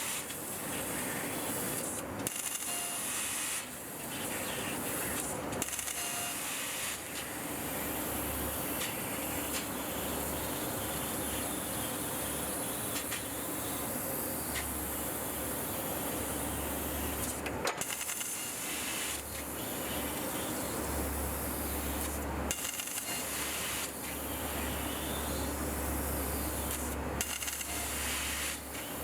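Laser cutting machine with an 8 kW source cutting 12 mm carbon steel: a steady hiss from the cut, broken by several short gaps, over a low hum that comes and goes.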